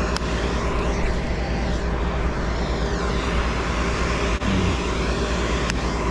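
A steady, unbroken engine drone with a low hum, with one short knock about four seconds in.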